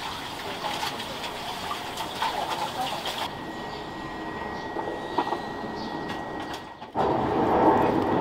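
Steady background bustle of a shop, with a faint high whine in the middle. It cuts suddenly to a louder, fuller bustle about seven seconds in.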